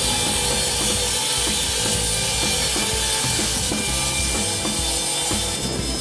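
Wood-Mizer LT70 WIDE band sawmill cutting through a log, a steady sawing noise of the thin-kerf band blade in the wood. It is mixed with background music carrying a beat of drums.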